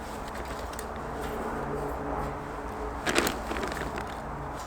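Handling noise of wood wool and kindling being set into a small titanium wood stove, with one short rustling knock about three seconds in. Under it runs a steady low hum.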